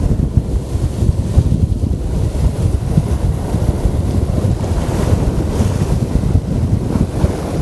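Strong, gusty wind buffeting the microphone in a loud, steady low rumble.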